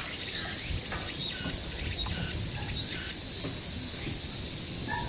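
A steady, high-pitched insect chorus drones without a break, with a low rumble underneath.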